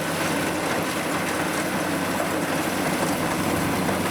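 Kubota combine harvester's diesel engine running steadily as the machine creeps along slowly.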